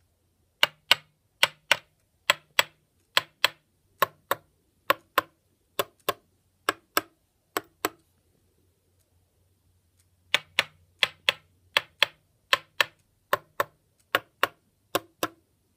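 Guitar frets tapped one after another with a small metal rod: sharp metal clicks in quick pairs, in two runs with a pause of a couple of seconds about halfway. The pitch of each click tells the fret's seating: a higher click is a tight, seated fret, a lower click is a loose fret.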